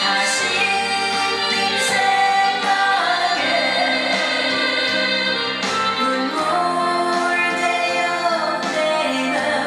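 A woman singing a pop song with instrumental accompaniment, holding long notes.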